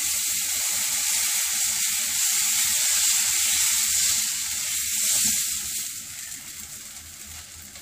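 Dosa batter sizzling loudly on a hot dosa tawa as it is poured and spread in circles with the back of a ladle. The hiss holds steady, then dies down over the last couple of seconds as the batter sets.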